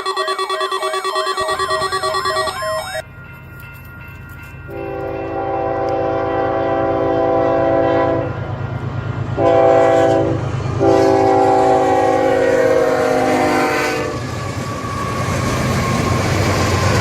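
Train passing with a steady low rumble while its multi-tone air horn blows three blasts: a long one, a short one, then a long one. A short electronic musical tune fades out in the first few seconds.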